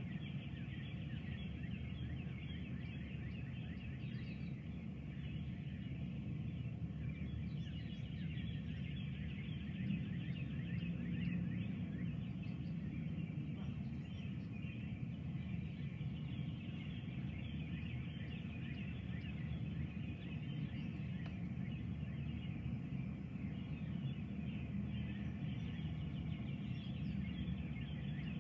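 Many birds calling at once in a dawn chorus, over a steady low rumble that swells briefly about ten seconds in.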